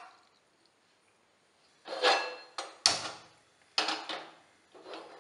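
Metal cooking vessels being set down and handled on the stove: about six separate knocks and clatters, some with a short metallic ring, after a second or two of near silence.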